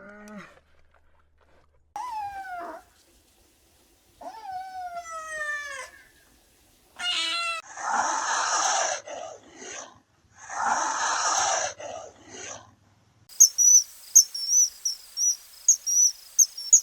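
A run of cat-like animal calls: falling and rising meows, a quick trill, then two long hissing bursts. About thirteen seconds in, these give way to steady cricket chirping.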